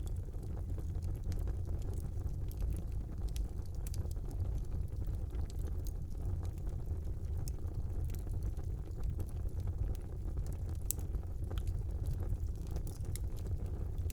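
Wood fire burning in a fireplace: a steady low rumble of the flames with frequent small, sharp crackles and pops scattered throughout.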